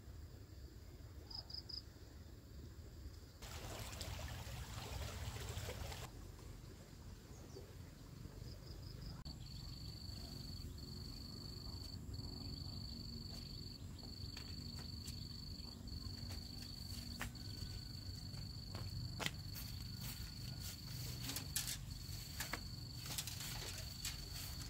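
Insect trilling at one high, steady pitch. It comes first as two short triple chirps, then runs almost continuously from about nine seconds in with brief breaks. A few seconds in there is a burst of rustling, and scattered clicks and rustles in the second half.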